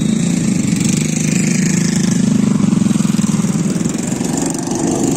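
A small engine running steadily with an even, low drone.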